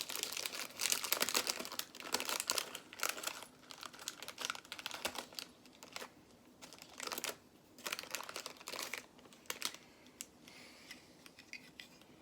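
Hands sorting through loose Lego pieces: dense crinkling and clattering of small plastic parts for the first few seconds, then scattered single clicks that thin out.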